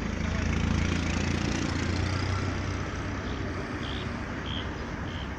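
A steady low rumble, with a bird's short high calls repeating about twice a second from about three seconds in.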